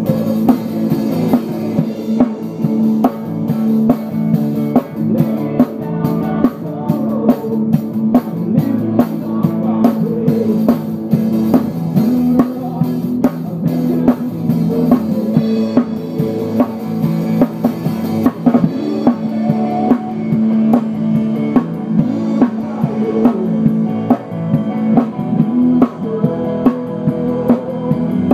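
Live band music heard from right behind the drum kit. The drums are close and loud, with bass drum, snare and cymbal hits keeping a steady beat over sustained pitched instruments.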